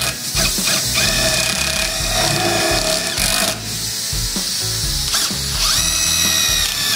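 Cordless impact driver running in two bursts, a steady motor whine, as it drives self-tapping screws through the sheet-metal preheater box into the burner housing.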